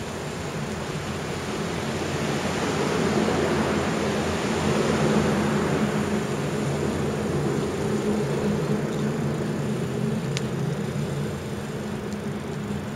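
A low outdoor rumble with a rushing hiss that swells to its loudest about five seconds in and then slowly fades, with a faint tick about ten seconds in.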